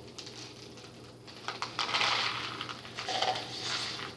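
Dry pet food pellets pouring and rattling onto a plate: a quick patter of many small clicks that sets in about a third of the way in and thins out near the end.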